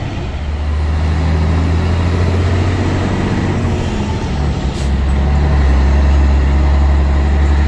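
Scania 113H truck's straight-six diesel engine running, heard from inside the cab in slow traffic. Its low drone dips briefly about four seconds in, then comes back stronger, with a short hiss around then.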